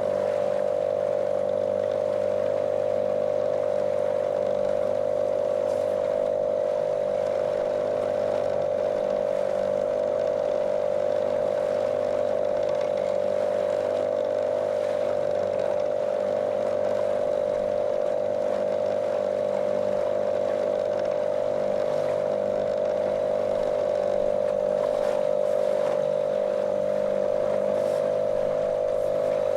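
Small motorboat's outboard motor running at a steady cruising speed, an even, monotonous drone with a strong steady tone and no change in pitch.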